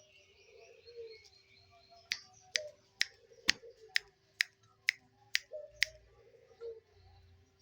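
Zebra dove (perkutut) giving short, low coos, with a run of about nine sharp clicks, roughly two a second, through the middle of the stretch.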